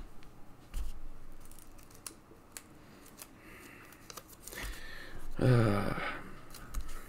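Small clicks and scrapes of hands handling Pokémon cards and plastic top loaders, with a short low voice-like hum about five and a half seconds in.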